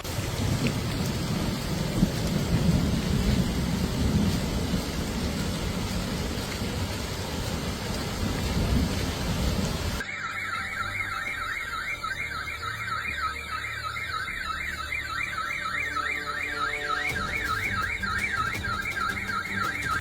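Heavy rain pouring down as a steady rush of noise for about ten seconds. Then, after a cut, a car alarm sounds with a fast, continuous warble, typical of alarms set off by a storm.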